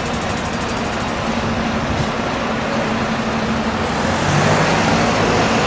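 Street traffic: a steady rush of passing vehicles, with an engine's low hum that grows louder about four seconds in.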